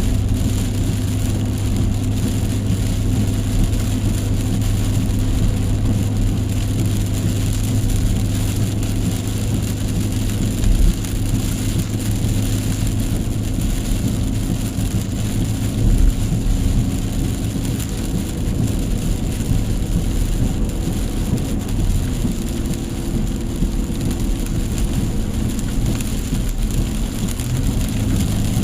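Heavy rain falling, over the steady low drone of a car driving, with two brief louder thumps partway through.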